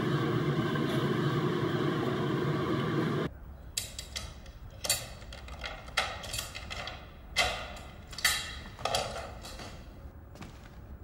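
A steady dense noise cuts off abruptly about three seconds in. Then comes a string of sharp knocks and clacks with short ringing tails, the louder ones roughly a second apart, growing fainter toward the end.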